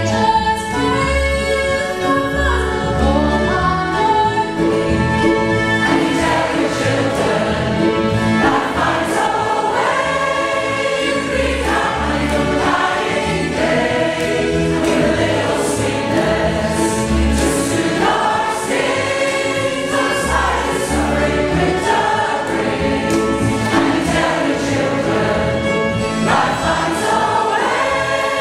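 Mixed choir of men's and women's voices singing a song, accompanied by fiddles and a double bass.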